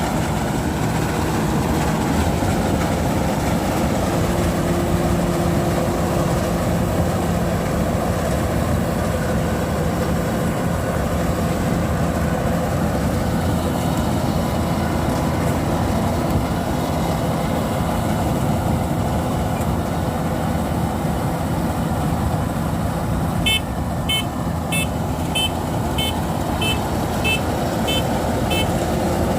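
Kubota DC93 combine harvester's diesel engine running steadily at working speed. Near the end a warning beeper on the machine sounds about nine evenly spaced high beeps.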